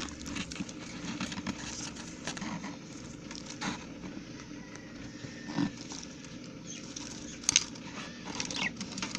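Budgies chirping briefly now and then, with scattered clicks, knocks and rustling from the cage or nest box over a low steady hum.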